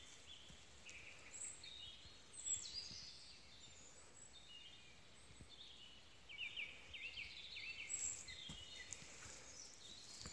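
Songbirds singing: scattered short chirps and trills, with a run of quick sweeping notes about two-thirds of the way through.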